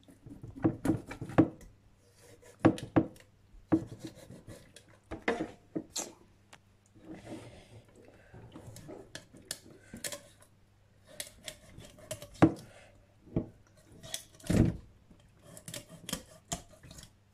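A knife scraping along the skin of a whole salmon to clean it, with irregular short scrapes and knocks against the wooden cutting board.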